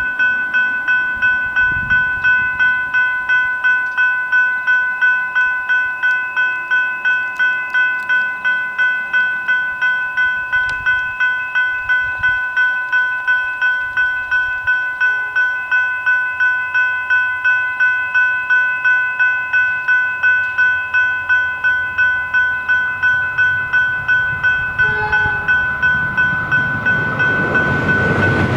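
General Signals Type 3 electronic level-crossing bells ringing in a fast, steady rhythm: the crossing's warning that a train is approaching. Near the end, the noise of the approaching train rises beneath them.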